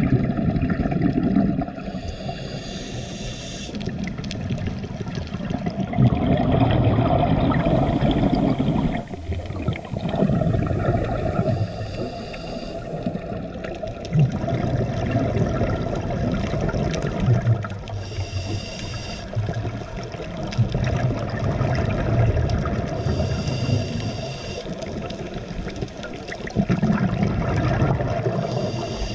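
Scuba divers breathing through their regulators underwater: a hiss on each inhale alternating with gurgling bursts of exhaled bubbles, repeating every few seconds.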